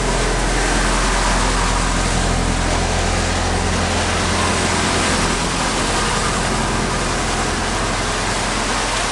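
A parked fire truck's engine running steadily, a low drone that is strongest in the first half and fades somewhat after about five seconds, over a steady hiss.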